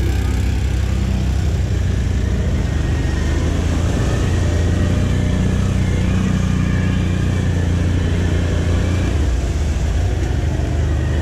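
Can-Am Outlander ATV engine running steadily as the quad drives through mud and shallow water, heard from the rider's seat.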